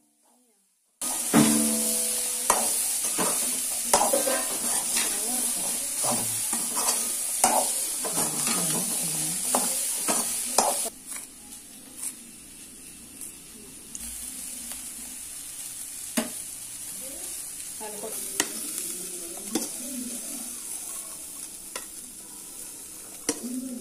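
Chickpea sundal sizzling in a metal pan while a spoon stirs it, with repeated scrapes and clinks against the pan; it starts about a second in. About eleven seconds in the sizzling stops, leaving a quieter stretch of scattered knife clicks as coriander leaves are cut on a wooden board.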